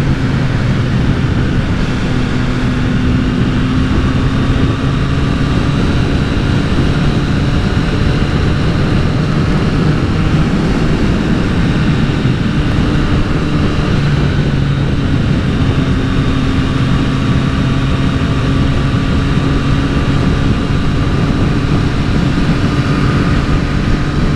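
Triumph motorcycle engine running at a steady cruising speed, its pitch holding nearly level, with wind rushing over the helmet-mounted microphone.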